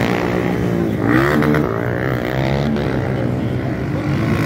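Motocross dirt bike engines revving on a dirt track, their pitch rising and falling several times as the riders work the throttle and shift. More than one bike is heard at once.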